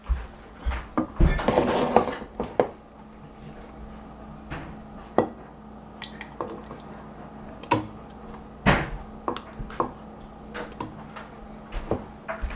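Metal ladle and spoon clinking and scraping against a stainless steel pot and a glass jar while thick fig jam is ladled into the jar: scattered sharp clinks a second or two apart.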